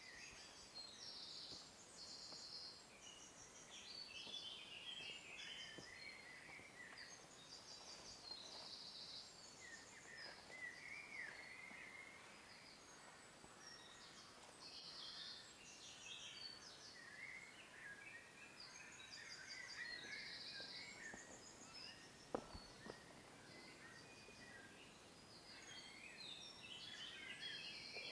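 Faint forest ambience of songbirds singing: warbling chirps and repeated rapid, high-pitched trills. One sharp click about three-quarters of the way through.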